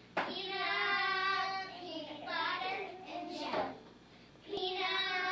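Young children singing together in long, held notes, with a short break about four seconds in. There is a sharp tap just at the start.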